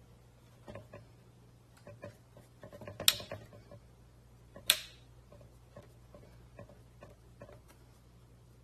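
A scattering of light knocks and clicks, with two sharp clicks about a second and a half apart near the middle. They sound like objects being handled, over a faint steady low hum.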